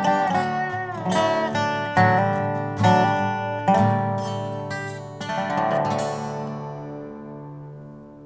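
Dobro and acoustic guitar playing the song's closing instrumental phrase: picked notes, some sliding in pitch, struck about once a second, then a final chord at about five and a half seconds that rings out and fades away.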